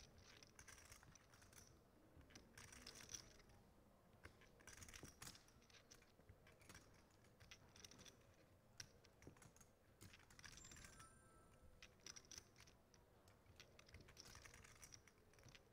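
Near silence with faint, scattered clicking of poker chips being handled, coming in small flurries.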